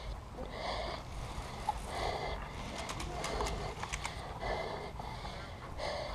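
Heavy, quick breathing close to the microphone, one breath about every second and a bit, with a few faint sharp clicks in between.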